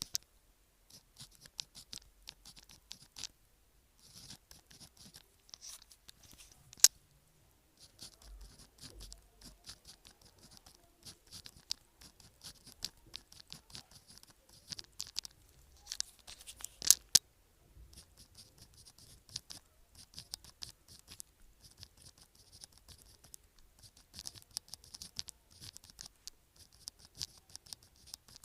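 A pen writing on sticky-note paper: bursts of scratchy strokes with short pauses between them, and a few sharp clicks, about seven and seventeen seconds in.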